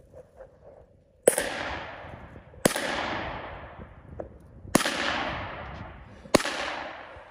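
Four single gunshots at uneven intervals, each dying away in a long echo that lasts more than a second.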